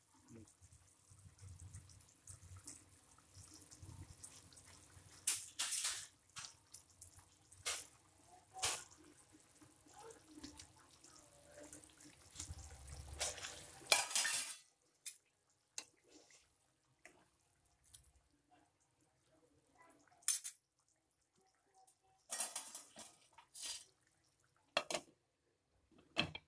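Curry gravy simmering in a pan, with scattered clinks and clatters of a utensil and a glass lid against the pan. In the second half the simmering drops out, leaving silence broken by a few sharp clatters.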